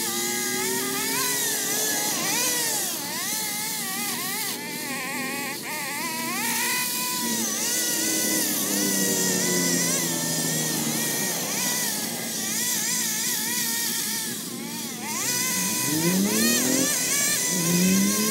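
Gas chainsaw running and cutting tree limbs, its engine pitch rising and falling over and over as it is revved and loaded in the wood.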